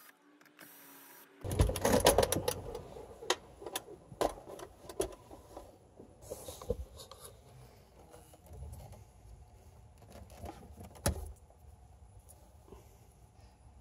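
Glove box door of a 1993 Acura Legend being worked out of the dashboard: a burst of plastic clattering and knocking after a quiet second or so, then scattered clicks and knocks with one louder knock later on.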